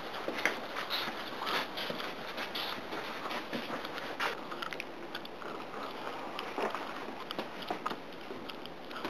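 Footsteps and clothing rustle of people walking across a garage floor: irregular soft clicks and scrapes, more frequent in the first few seconds.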